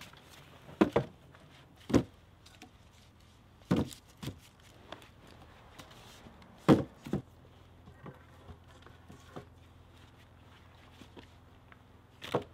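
Cut log poles knocking against each other and against a wooden pole frame as they are laid down: irregular sharp wooden knocks, some in quick pairs. The loudest comes about two-thirds of the way in, with one more near the end.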